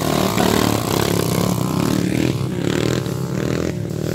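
Dirt bike engine revving hard as the bike pulls away, the note surging and breaking off several times.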